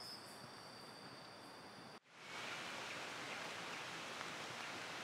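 Faint insect chirring with a steady high tone for about two seconds, then, starting abruptly, steady rain falling in the forest.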